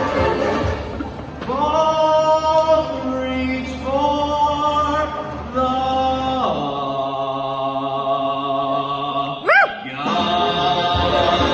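A stage ensemble singing long held chords that step up in pitch a few times, then settle on a deep held chord. Near the end a quick high swoop rises and falls, and fuller band music comes back in.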